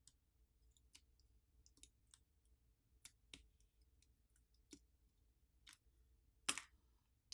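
Faint scattered clicks and taps of fingertips and a plastic pry pick working on a smartphone's internal parts and connectors, the loudest click about six and a half seconds in.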